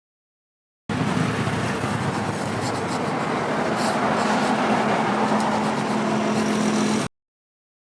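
A machine running steadily, with a low hum under a broad rushing noise. It starts abruptly about a second in and cuts off abruptly about a second before the end.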